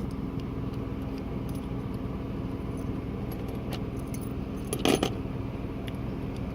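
Small metal clicks and clinks of a Kwikset lock and tools being handled, over a steady low hum, with one louder clatter about five seconds in.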